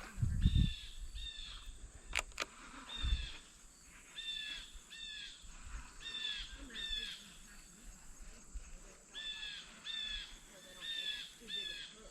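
A bird calling over and over: short notes that slur downward, mostly in pairs, about once a second. A low rumble comes about half a second in, and a sharp click about two seconds in.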